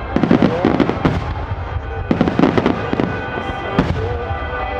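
A wide starmine fireworks barrage: rapid volleys of shell bursts in close clusters, with music playing over it.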